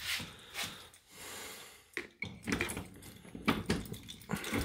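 Scattered light clicks and knocks of hands working a vending machine door and its tubular lock. The clicks get more frequent about halfway through.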